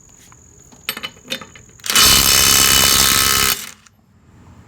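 DeWalt DCF902 12-volt 3/8-inch cordless impact wrench hammering on a lug nut for about a second and a half, then stopping abruptly: in wrench mode it shuts off once it feels the nut break loose. A few light clicks and knocks come just before it starts.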